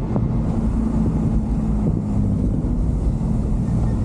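Cargo truck's engine running steadily under way, with road and wind noise, heard from inside the cab.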